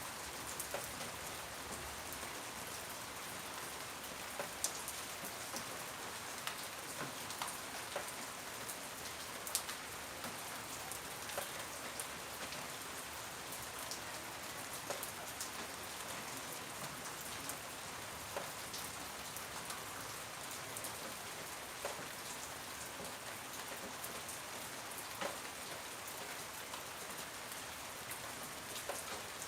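Steady rain falling, an even hiss with scattered close drops ticking sharply onto a surface.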